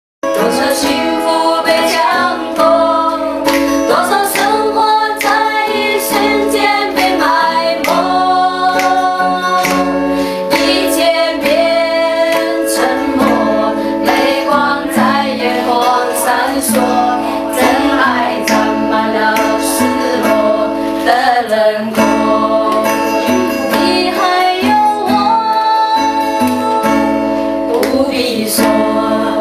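A small group of women singing a song together to an acoustic guitar that one of them plays.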